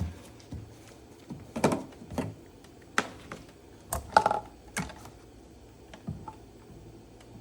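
Irregular clicks and knocks of plastic quart bottles of motor oil being handled, about a dozen over several seconds, the loudest a quick cluster about four seconds in.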